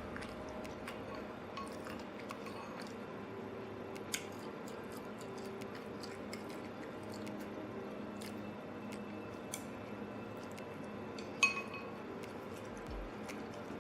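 Someone eating noodles: faint chewing and light clicks of chopsticks against a dish, with one sharp ringing clink about eleven seconds in.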